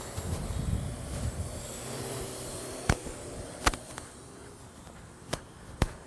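Parrot AR.Drone 2.0 quadcopter's four rotors whirring as it flies low, with wind buffeting the microphone during the first couple of seconds. Four sharp clicks come in the second half.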